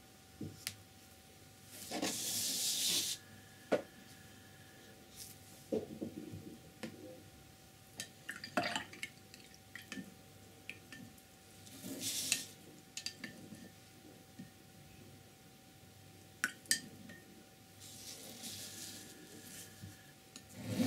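Quiet, intermittent handling sounds at a painting table: three short swishes and a scattering of light clicks and taps, over a faint steady hum.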